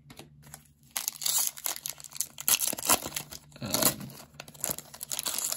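Plastic wrapper of a Topps baseball card pack crinkling and tearing open by hand, a dense run of crackles that starts about a second in.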